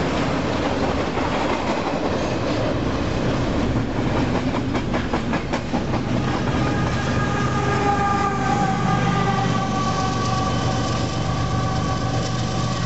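Double-stack container train passing close by, with the steady rumble and clatter of its well cars' wheels on the rails and a quick run of wheel clicks over a rail joint about five seconds in. From about halfway a high steady whine, falling slightly in pitch, joins in. The low drone of a Union Pacific diesel locomotive at the rear of the train comes in as it passes and moves away.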